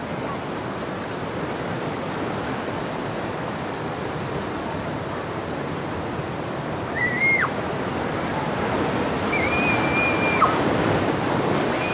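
Ocean surf breaking and washing over rocks, a steady rush of water that swells as a larger wave breaks about three-quarters of the way through. Two short high-pitched cries sound over it, each held briefly and then dropping sharply.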